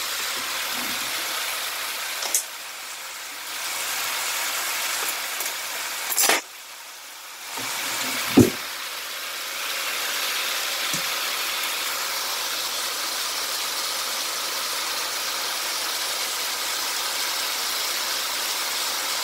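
Pork and bean sprouts sizzling steadily in a frying pan near the end of their cooking, with the sizzle dipping briefly twice. A few sharp knocks of a wooden spatula against the pan.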